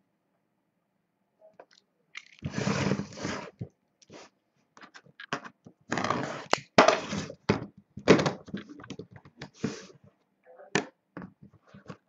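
Hands working a metal aluminium briefcase-style card box: from about two seconds in, scraping as a blade cuts its seal sticker, then sharp clicks and knocks from the case's latches and lid.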